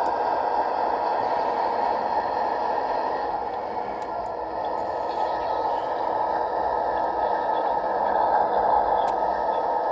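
Sound decoder in an HO-scale Athearn Genesis P42DC locomotive model playing a steady diesel engine idle through the model's small speaker, thin and tinny with little bass, dipping slightly in the middle and swelling a little near the end.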